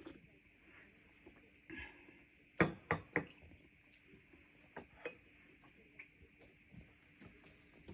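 Scattered light clicks and knocks of dishes and utensils being handled during a meal, with a quick run of three louder knocks about a third of the way in, over a faint steady hum.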